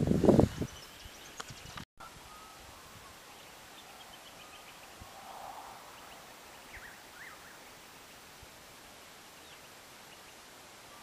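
Faint, steady open-air ambience in a pasture with a few faint bird chirps, after loud low rumbles and thumps in the first second.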